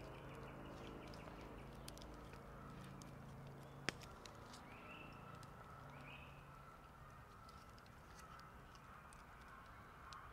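Faint crackling and ticking from campfire embers and a sausage cooking on a hot rock beside them, with one sharp pop about four seconds in.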